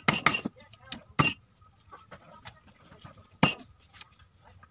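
Large knife chopping pufferfish on a wooden chopping block: a quick run of blows at the start, then single chops about a second in and at about three and a half seconds, with a few lighter taps between.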